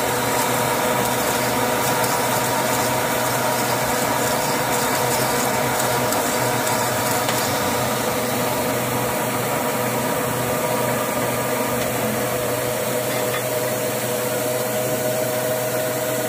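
Metal lathe running steadily as it turns a steel shaft under a stream of cutting oil: an even machine hum with several steady tones from the motor and headstock gearing.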